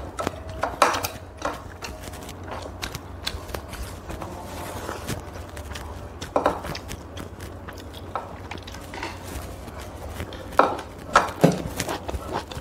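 Instant noodles being slurped and chewed, with chopsticks clicking against plates and the pan. Short sharper slurps and clicks stand out about a second in, around six seconds, and in a cluster near the end, over a low steady hum.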